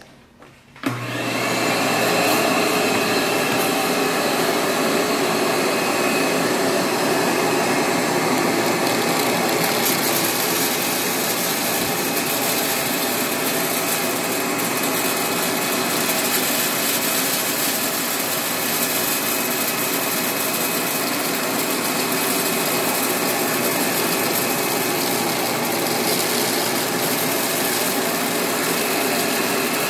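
Shop vac switched on about a second in, then running steadily, pulling air through a homemade wooden zig-zag seed aspirator.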